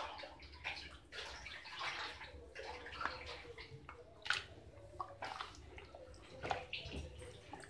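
A hand squishing and stirring minced mutton through a thin, wet masala paste in a pressure cooker: faint, irregular squelches and sloshes.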